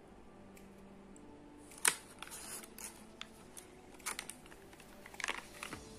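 Clear plastic packaging bag crinkling and rustling as it is handled, with scattered small clicks; the sharpest crackle comes about two seconds in.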